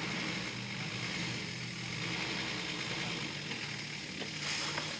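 Off-road 4x4's engine running steadily at low revs as it crawls over rocks, its pitch dropping slightly about three and a half seconds in.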